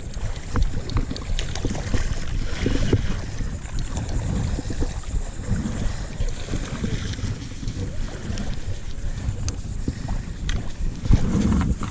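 Wind buffeting the microphone, a rough, uneven low rumble, with scattered small knocks and clicks.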